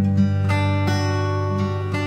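Background music led by a strummed guitar, with held chords.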